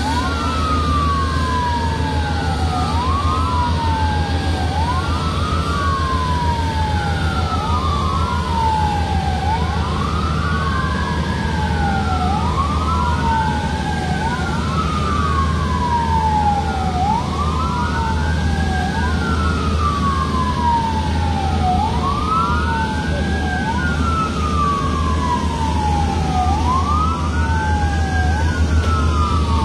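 Airport fire trucks' sirens wailing, two sirens out of step, each rising and falling every two to three seconds, over a steady low rumble of engines.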